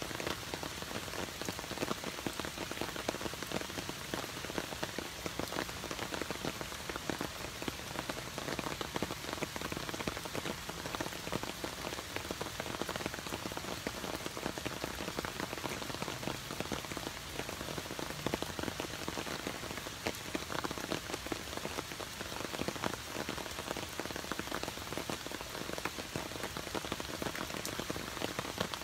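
Steady rain falling on dense garden foliage and a gravel path, an even hiss with countless single drops ticking through it.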